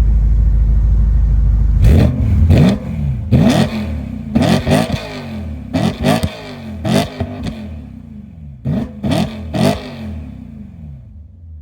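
BMW E92 M3 GTS's 4.4-litre V8 exhaust idling, then blipped through a string of sharp revs starting about two seconds in, each rising and falling quickly. It drops back to a quieter idle near the end.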